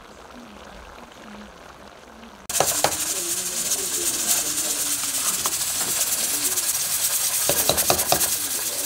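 A spoon stirring a big aluminium pot of rice and peas, clinking and scraping against the metal, over a steady loud hiss that starts suddenly about two and a half seconds in.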